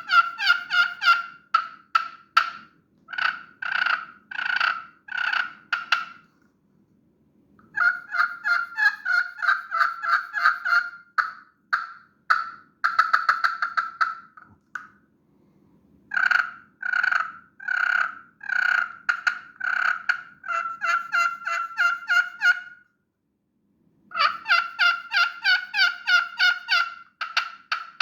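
Walnut-pot grey slate turkey call worked with a striker, giving runs of turkey-like yelps: four strings of evenly repeated notes with short pauses between them, the second string quicker and more rapid near its end.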